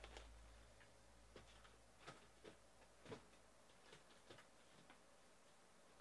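Near silence with faint, irregular clicks and taps, about seven or eight of them, from trading card boxes and packs being handled on a table.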